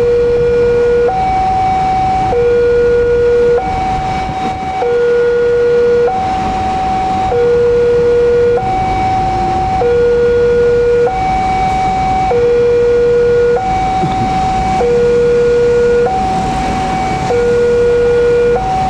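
Railway level-crossing warning alarm: an electronic two-tone signal alternating evenly between a lower and a higher tone, each held about a second and a quarter, sounding while the crossing is closed for an approaching train.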